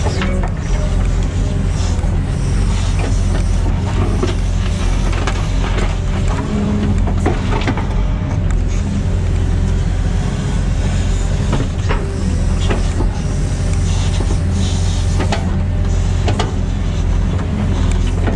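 Cat 313FL excavator with its diesel engine running steadily as it works. Frequent sharp clanks and scrapes come from its tiltrotator bucket dragging through soil and stones.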